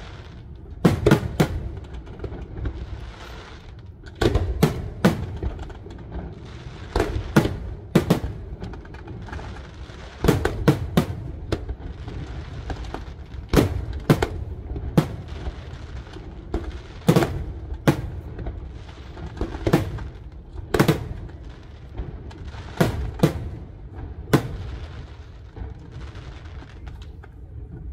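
Aerial firework shells bursting: sharp bangs in quick groups of two or three every few seconds, over a continuous low rumble. The bangs stop a few seconds before the end, leaving only the rumble.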